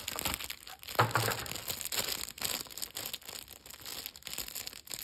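Thin clear plastic bag crinkling and crackling as it is handled and worked open, with irregular sharp crackles throughout.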